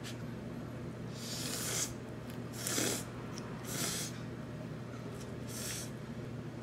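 A person slurping rice noodles from a bowl of noodle soup, four short slurps with the second the loudest.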